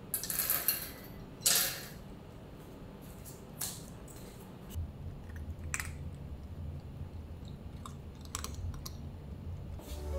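Cat food bowls set down on a wooden floor with a clatter of dry kibble, then cats eating, with sparse crunches and clicks against the bowls.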